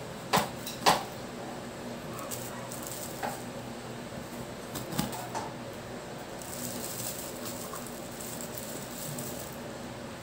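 Kitchen knife cutting calamansi in half on a wooden cutting board: two sharp knocks of the blade on the board about half a second apart near the start, then a few fainter taps.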